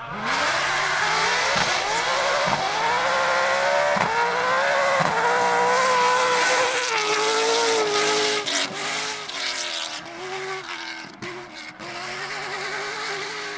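BMW V8 in a Peugeot 205 rally car accelerating hard, the revs climbing in several quick upshifts, then held high. After that the engine runs lower and uneven, with a few sharp cracks near the end.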